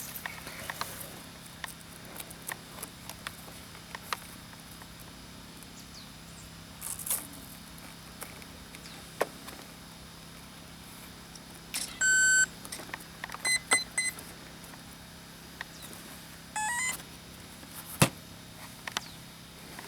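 Electronic beeps from radio-control model gear: one long beep about twelve seconds in, three short beeps just after, then a quick rising run of tones a few seconds later. Light clicks of handling run throughout, with one sharp knock near the end.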